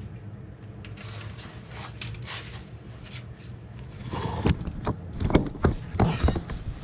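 Metal tools and parts being handled: a few seconds of low steady hum, then a run of loud clanks and knocks from about four seconds in, one with a short metallic ring near the end.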